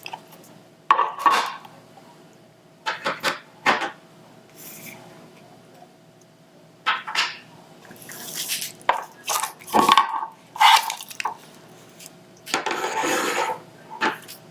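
Close-miked handling of diamond painting supplies: a series of irregular short clicks and taps of small hard pieces, with a longer rustle about a second long near the end.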